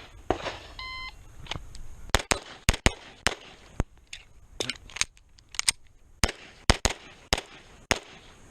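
A shot timer's start beep about a second in, then a rapid string of 9mm pistol shots from a Beretta 92 Elite LTT, many fired in quick pairs.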